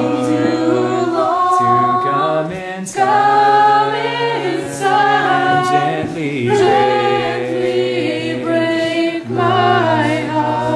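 A group of voices singing a slow worship song, with long held notes.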